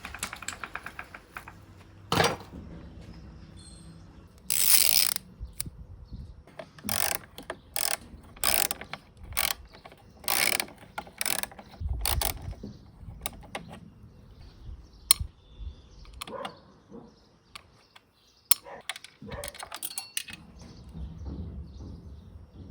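Mechanical ratcheting and clicking from hand work on an old lawn mower's recoil starter. A run of short rasping strokes comes about every two-thirds of a second in the middle, then scattered clicks.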